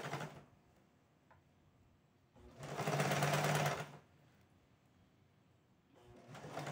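Elgin domestic sewing machine stitching bias binding around a curved fabric edge in short runs. It stops about half a second in, runs again for about a second and a half in the middle, and starts up once more near the end, with quiet pauses between the runs.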